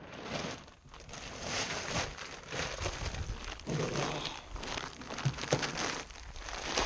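Large sack of deer feed crinkling and rustling as it is handled and lifted out of a pickup bed, with scattered crackles.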